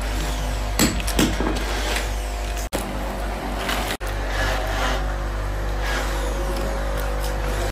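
Steady low mechanical hum, with a few clicks and rustles as plastic tail-light parts and wires are handled. The sound breaks off for an instant twice.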